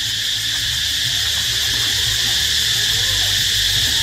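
Dense, steady chorus of tropical insects, a constant high-pitched drone, over a low steady hum.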